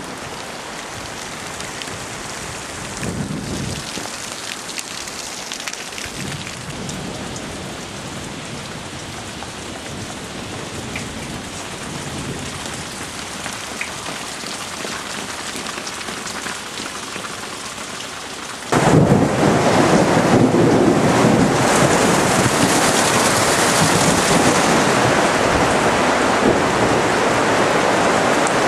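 Steady rain falling. About nineteen seconds in it becomes suddenly much louder: rain beating on the greenhouse's plastic roof and panels.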